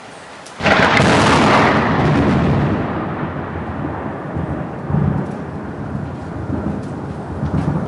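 Thunder from a very close cloud-to-ground lightning strike: a sudden sharp crack about half a second in, fading over a couple of seconds into a rolling low rumble that swells twice more.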